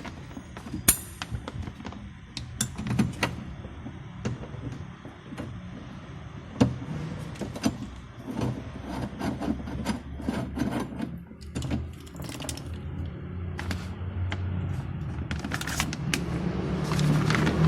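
Background music with a steady low tone, over many scattered sharp clicks and knocks. The low tone grows louder near the end.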